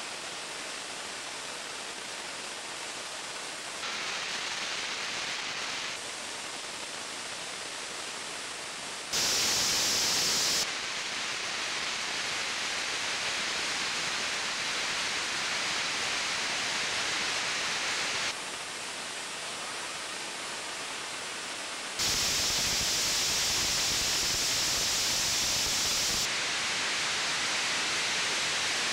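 Firework fountains spraying sparks with a steady rushing hiss. The hiss jumps abruptly louder and brighter twice, about a third of the way in and again past two-thirds, and shifts level a few more times.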